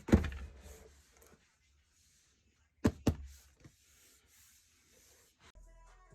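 A single knock, then two sharp clicks a fraction of a second apart about three seconds later, followed by a few faint ticks; music comes in near the end.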